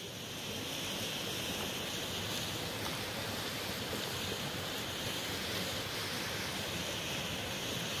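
Steady sizzling of meat, vegetables and freshly added tomatoes in a sac pan over a wood fire, blended with the even rush of a river.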